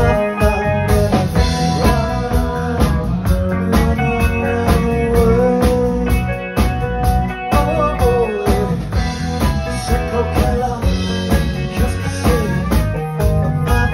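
Live rock band playing: drum kit and electric guitar, with a male singer singing into a microphone.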